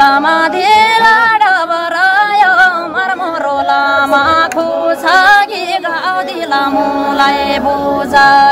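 A woman singing a long, ornamented melody, her notes bending and wavering, over a steady held tone underneath.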